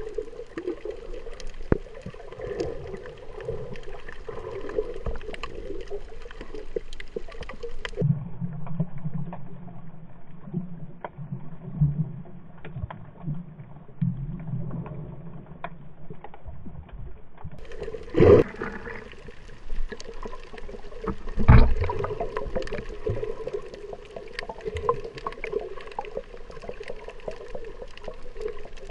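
Muffled underwater sound heard through a camera held below the surface: a steady low rush of water with scattered clicks. For a stretch in the middle it turns duller and deeper, and two louder knocks come a few seconds apart past the middle.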